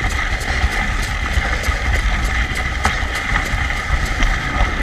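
Steady running noise of a dog-drawn sled or rig moving along a trail: a low rumble with a steady high hum, crossed by quick light ticks.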